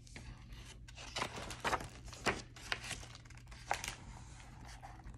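Pages of a hardcover picture book being handled and turned: a handful of brief paper rustles and crinkles.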